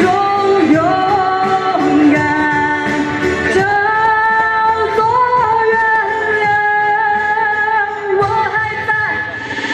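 A singer performing a Mandarin pop song over backing music, holding long sustained notes with a few slides in pitch.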